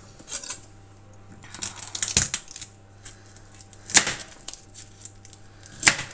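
A kitchen knife and other utensils handled on a plastic cutting board: a few sharp clicks and knocks, a quick cluster about two seconds in and single sharp ones about four and six seconds in, over a faint steady hum.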